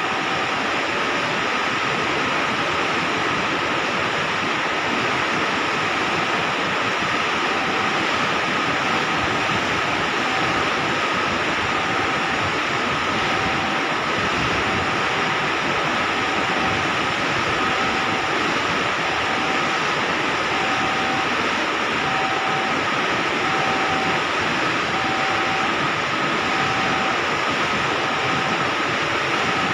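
Railway level-crossing warning bell dinging about once a second, over a steady rushing noise.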